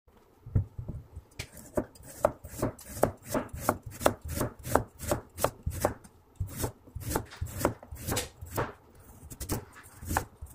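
A cleaver chopping cabbage and carrot on a plastic cutting board: a steady run of sharp knocks, about three a second.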